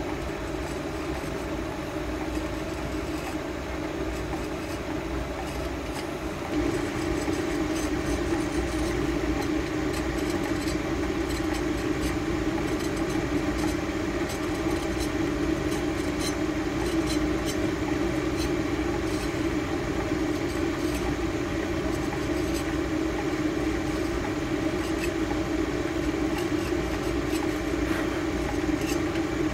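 A steady mechanical hum that gets louder about six and a half seconds in, with faint scratching of a metal carving tool incising lines into the glaze-painted porcelain.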